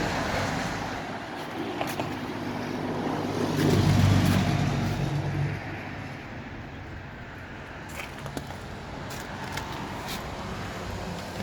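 Ford Focus engine on a cold start. It swells louder for about two seconds, from roughly three and a half seconds in, then drops back to a steady idle.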